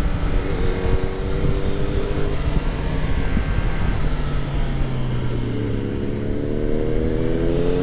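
Kawasaki Ninja 1000's inline-four engine running under way with wind rushing past, its pitch dropping as the throttle eases in the middle and rising again near the end as it pulls on.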